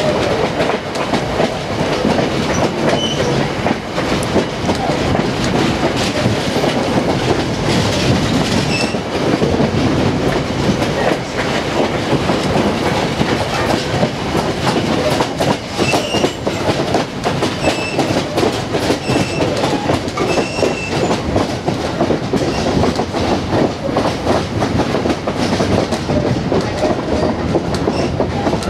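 Vintage railroad passenger coach rolling along the track, heard from aboard: a steady rumble full of small clicks as the wheels run over the rail joints. Brief high-pitched wheel squeals come several times.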